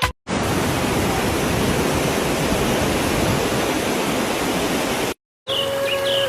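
Waterfall: a steady, dense rush of falling water that starts and stops abruptly at clip cuts. After the second cut, birds give short chirps over a steady tone.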